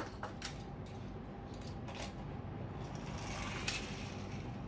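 Small toy car rolling down a sandpaper-covered cardboard ramp onto a table: a few light clicks, then a gritty rustle about three seconds in and a sharper click just before the end.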